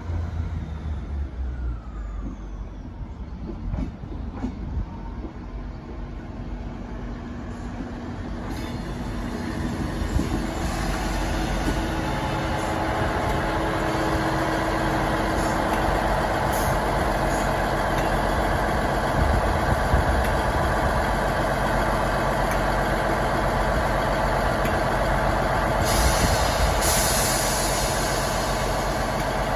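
Class 158 diesel multiple unit passing slowly over the level crossing into the station. Its underfloor diesel engines drone steadily and grow louder from about eight seconds in. There is a short hiss near the end.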